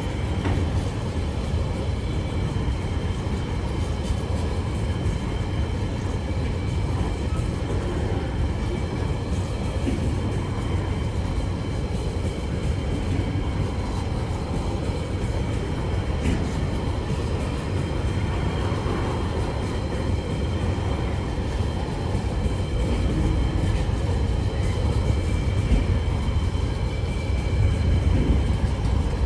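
TasRail container freight wagons rolling past: a steady rumble of steel wheels on the rails, a little louder near the end.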